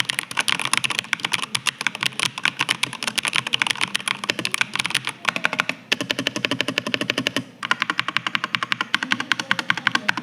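Typing on a 65-key wireless mechanical keyboard: a fast, dense run of key clicks, broken briefly about six seconds in and again about seven and a half seconds in.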